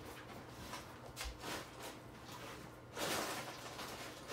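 Faint off-table handling noise: a few soft clicks and a low thud in the first half, then about a second of louder rustling near the end.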